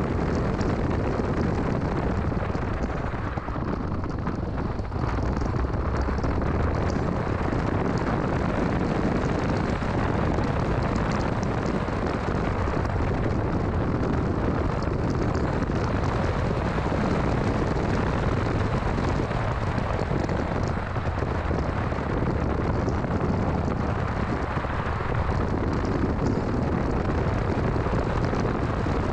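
A 2006 Mini Cooper S being driven: a steady, loud mix of engine, tyre and wind rumble, deepest in the low end, with no let-up.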